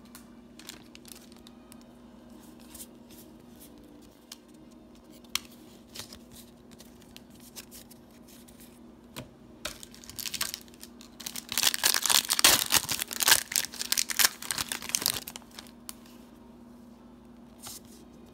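Foil trading-card booster pack being torn open and crinkled, loudest in a dense run of crackling from about twelve to fifteen seconds in, after a stretch of scattered soft clicks and rustles.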